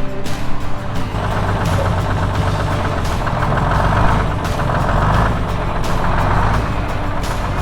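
Vintage 40-foot GM transit bus engine running steadily as the bus drives, with music mixed underneath.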